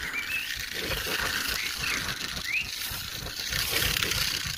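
Crested porcupine rattling its raised quills: a fast, continuous dry rattle made by shaking the quills together, a defensive warning meant to scare off a threat.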